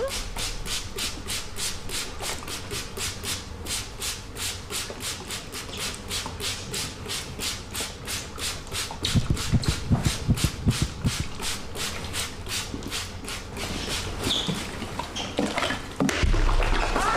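Steady rhythmic scraping or rubbing, about four strokes a second, with a short run of low thuds a little past the middle.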